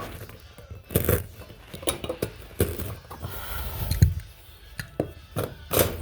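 Irregular knocks and light metallic clinks from carpet-laying work, with tools and carpet being handled, about a dozen sharp hits of varying strength.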